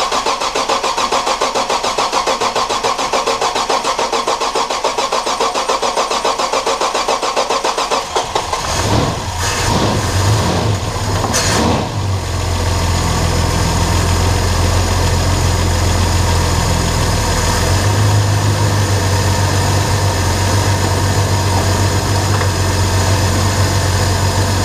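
Nissan GQ Patrol's rebuilt 4.2-litre inline-six cranked on the starter for about eight seconds until it fires, the revs flaring up and down a few times before it settles into a steady idle. It is the engine's first start after a cylinder head and camshaft rebuild, with the ignition timing only roughly set.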